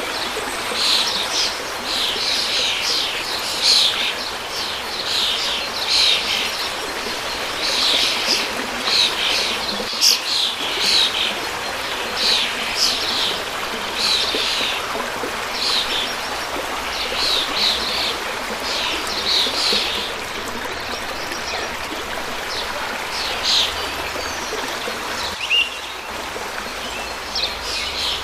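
Stream flowing steadily with small birds chirping over it in quick, repeated notes; the chirping is busy for most of the stretch and thins out near the end.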